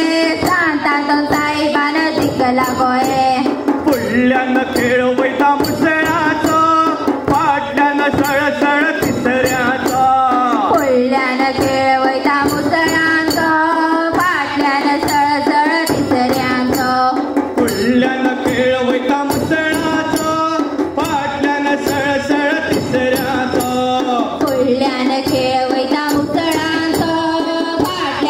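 Live Goan folk music for the musal dance: voices singing a Konkani song over a steady beat of small hand cymbals and a drum.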